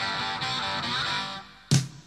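Rock music soundtrack: an electric guitar chord is struck and rings out, fading, then loud sharp hits come in near the end as the band kicks in.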